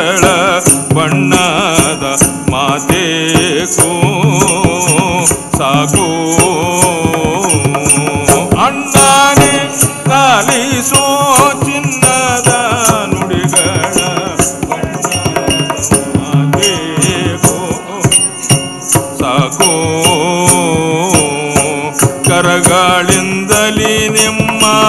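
Live traditional accompaniment to a Karnataka leather shadow-puppet play: a voice singing a wavering, ornamented line in Kannada over a steady low drone, with fast, busy percussive clicks throughout.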